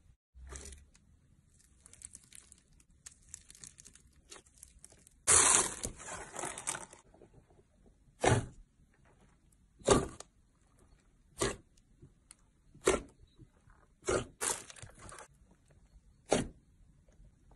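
Hand squeezing foam-bead slime (floam), crackling and crunching, with one loud crunch about five seconds in. Then hand presses into slime give a series of sharp pops, about one every second and a half.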